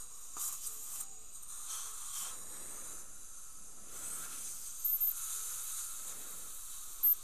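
Steady hiss of dental suction drawing air and water from the implant screw access holes. There are two short, sharp high sounds, one about five seconds in and one near the end.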